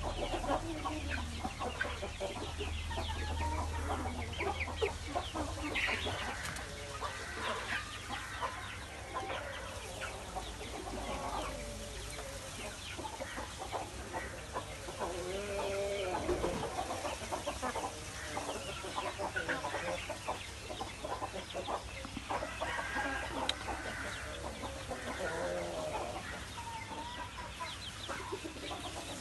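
Chickens clucking, with many short calls and a few longer, drawn-out ones scattered throughout.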